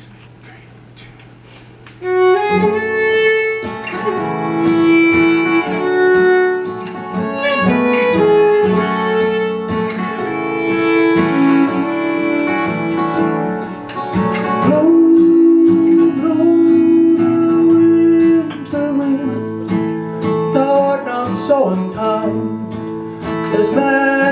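Live acoustic string music, plucked and bowed strings playing an instrumental introduction, starting about two seconds in after a quiet moment.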